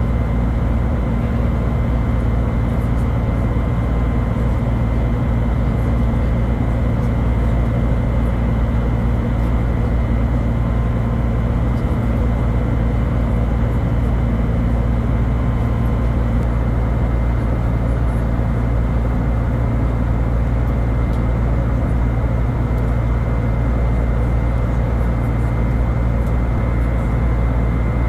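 Steady cabin noise of an Airbus A320neo shortly after takeoff, heard inside the cabin: a loud, deep rumble of engines and airflow with a faint, steady whine over it.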